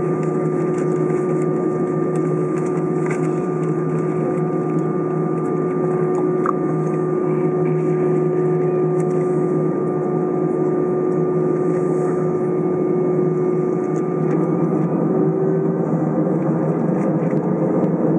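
Airbus A319 jet engines idling, heard inside the cabin over the wing: a steady hum with several steady tones. About three-quarters of the way through, a new tone joins them and creeps slowly upward.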